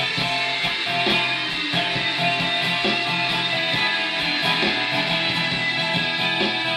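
Acoustic guitar strummed in a steady rhythm, its chords ringing on with no singing over them.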